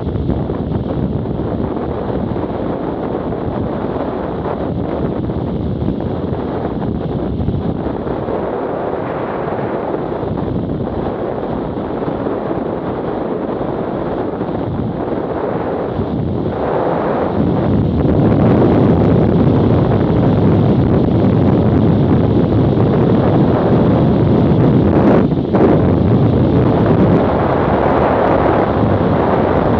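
Wind rushing over the microphone of a Garmin Virb Elite action camera on a BMW F800GS ridden at road speed, with the bike's running noise underneath. It gets louder a little past halfway.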